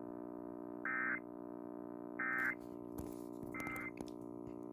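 Emergency Alert System end-of-message data tones: three short, identical warbling digital bursts about a second and a half apart, closing the warning broadcast. A steady low electrical hum from the radio runs underneath.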